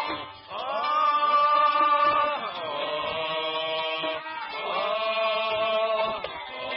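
A man singing an Arabic tarab song: two long held notes, each sliding up into the note and falling away at its end, the second starting a little past halfway.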